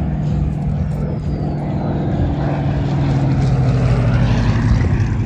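Propeller airplane's piston engine flying past, a steady drone that grows louder toward the end.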